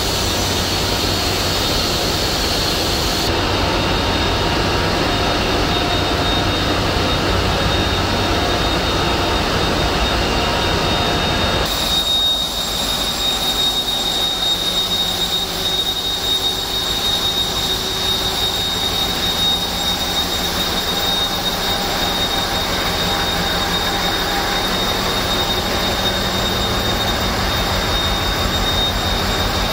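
Loud, steady din of a container ship's engine room under way, dominated by running auxiliary diesel generator sets and pumps. About twelve seconds in the sound changes abruptly, and a steady high-pitched whine runs on above the din from then on.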